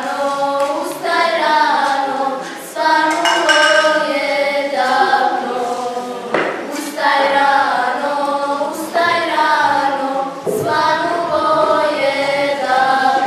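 A group of girls singing a folk song unaccompanied, in long held phrases with short breaths between them.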